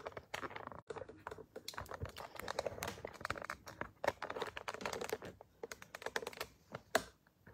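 Rapid, irregular clicks and small knocks with some rustling: handling noise from a phone camera and its wobbly mount being turned and adjusted.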